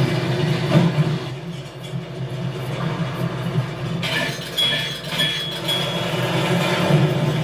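Film sound effects of heavy machinery running: a steady low mechanical rumble with rail-like clatter, as of something rolling along a track. There are a few clanks, and three short high beeps about halfway through.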